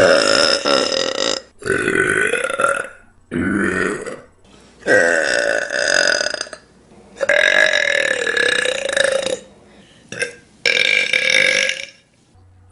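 A person burping loudly in a series of about seven long, drawn-out burps, most lasting one to two seconds, with short gaps between them and one very brief burp near the end.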